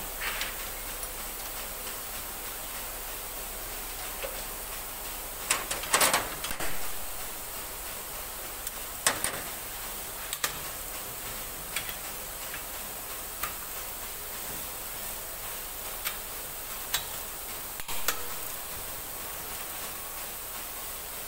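Hand tools clinking and knocking on the metal fittings of a Kaiser rotary screw compressor's oil tank cover as it is taken apart. Scattered sharp clicks, with a louder cluster about six seconds in, over a steady hiss.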